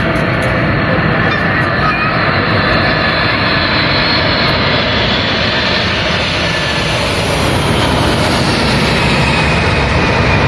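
Jet airliner's engines passing close overhead: a loud, steady rushing noise with a faint high whine that drifts slightly lower near the end.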